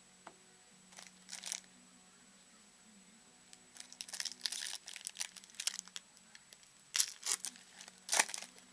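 Upper Deck football card pack wrapper being crinkled and torn open by hand: a few crackles about a second in, a run of crinkling from about four seconds, and two louder rips near the end.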